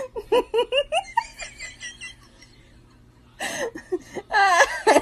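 A person laughing: quick high-pitched bursts of laughter in the first second, then louder laughter with a long, high wavering squeal near the end.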